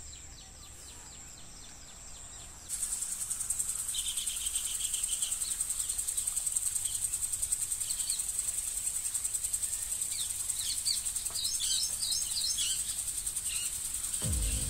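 High, rapidly pulsing insect chorus with birds chirping over it; the ambience jumps louder about three seconds in, and music comes in near the end.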